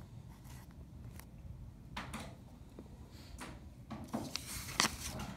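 Light desk-handling sounds: a felt-tip marker finishing a few strokes on paper, then scattered rustles and small knocks from paper and card being handled. They grow busier over the last second or so, with one sharper knock just before the end.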